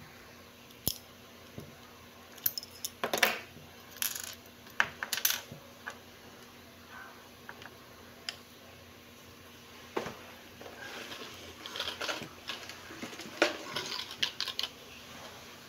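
Small metal clicks and clinks as a wristwatch with a metal link bracelet is handled and set down on a wooden table, the links rattling, in two busy spells a few seconds in and again near the end.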